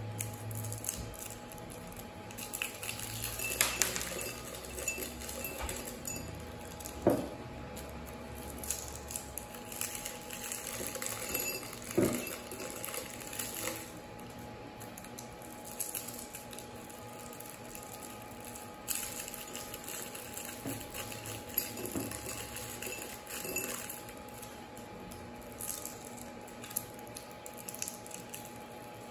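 Small candy tablets from unwrapped Rockets rolls dropping into a tall drinking glass and clinking against it and each other, with wrapper crinkling and scattered light clicks. A few louder clinks stand out, about 4, 7, 12 and 22 seconds in.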